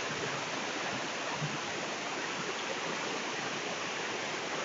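Steady rushing of a shallow, muddy river flowing over stones and gravel.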